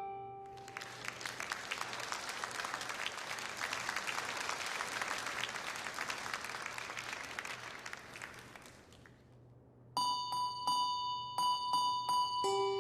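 Bells jingling in a continuous shaken rattle that fades out, followed about ten seconds in by bright ringing bell notes picking out a tune.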